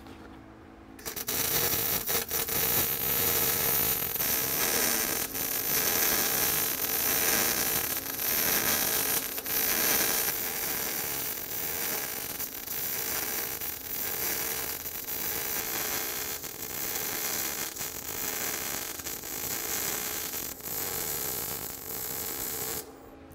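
MIG welding arc running a fillet weld: a dense, steady crackle of fine clicks that starts about a second in and cuts off near the end. It is the sound of a good pass with the wire feed set right, laying a clean weld.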